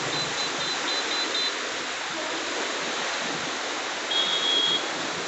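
Steady rush of water pouring through a river barrage, with a few short, high beeps over it about a second in and again near the end.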